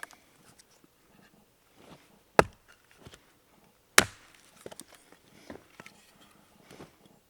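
Two sharp chopping strikes on wood, about a second and a half apart, with faint clicks and rustles of handling between them.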